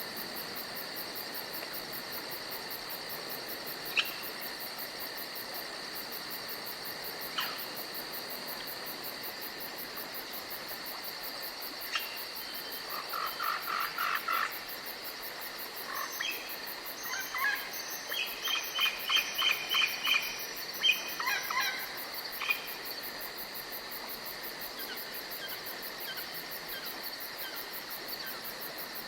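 Crickets chirring steadily in a forest at night, with runs of quick repeated calls from a bird or other animal in the middle and a few isolated sharp clicks.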